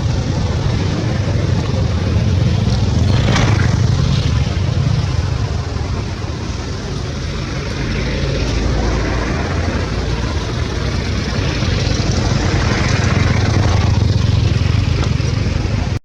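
A loud, continuous low rumble with an even hiss over it.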